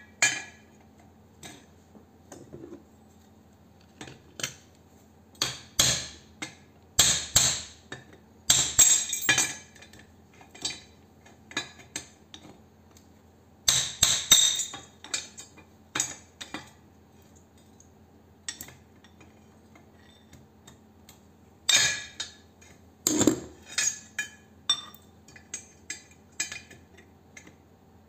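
Sharp metal-on-metal clinks and clatter of steel pieces on a steel workbench, with bursts of ringing hammer blows on a cold chisel cutting into a small transformer's copper winding and laminated steel core. The blows come in several clusters, loudest about seven to ten seconds in and around fourteen seconds in.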